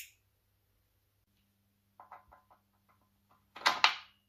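Metal parts being handled and fitted on a Model T rear axle: a sharp click at the start, a few light clicks about two seconds in, then a louder clatter of metal on metal near the end.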